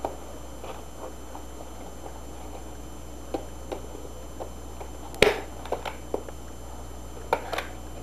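Handling noise from a black plastic wireless lighting control panel being turned over and moved about on a table: scattered light clicks and knocks, the loudest about five seconds in. A steady low hum runs underneath.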